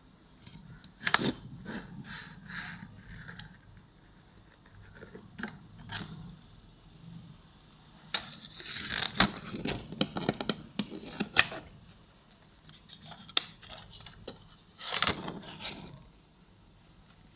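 Irregular scraping and sharp clicks from hand tools working on a circuit board while an old electrolytic capacitor is removed and replaced, in three busy bursts with quieter gaps between.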